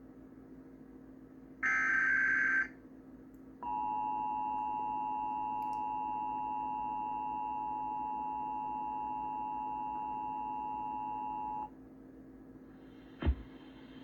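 Emergency Alert System test broadcast: a one-second screech of the digital SAME header data burst about two seconds in, then the EAS two-tone attention signal held steady for about eight seconds and cutting off abruptly. A short click comes near the end.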